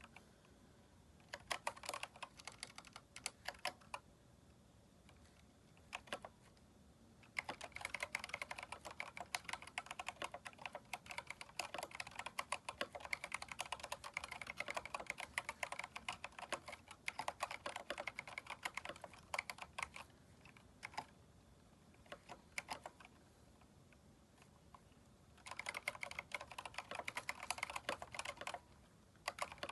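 Typing on a Keychron K4 mechanical keyboard fitted with aftermarket keycaps: fast runs of key clicks, with a pause of a few seconds after the opening burst and another near the end before a last burst.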